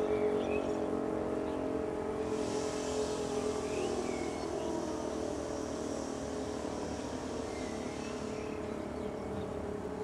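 Civil-defence motor siren sounding a steady tone made of several close pitches, slowly getting quieter. A rushing hiss joins it from about two seconds in until near the end, with a few faint chirps.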